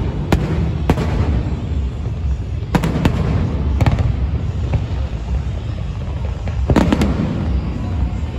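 Fireworks display: aerial shells bursting with sharp bangs every second or so, and a quick run of cracks about two-thirds in, over a continuous low rumble.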